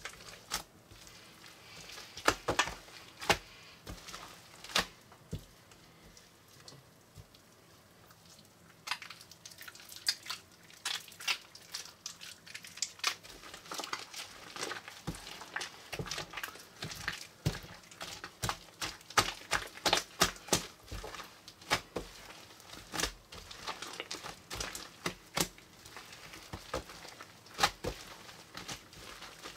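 A large mass of mixed slime and putty loaded with foam beads being kneaded and squeezed by hand, giving irregular wet crackling and popping. A few loud pops come about two to five seconds in, then it goes quieter, and from about nine seconds in the crackling turns dense and steady.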